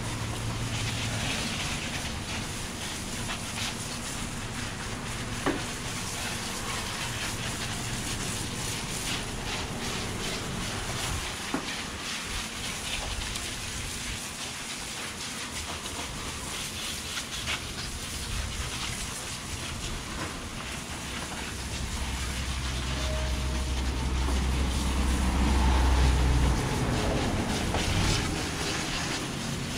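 High-pressure water from a car-wash wand spraying across a hot engine bay: a steady hiss of spray with spatter on metal and plastic. It grows louder and heavier for a few seconds near the end, then eases off.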